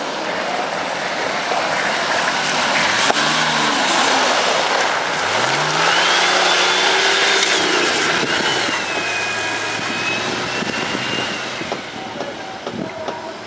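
Nissan Patrol GR's diesel engine revving under load off-road, its pitch rising about three seconds in and again about five seconds in, over a steady rushing noise. A high whine runs through the middle of the sound.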